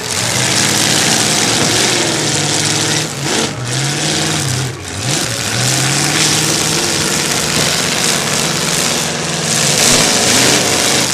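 Demolition derby car engines running loud and revving, their pitch swinging up and down several times, with a dip about three and a half seconds in and again around five seconds, over a heavy rushing noise.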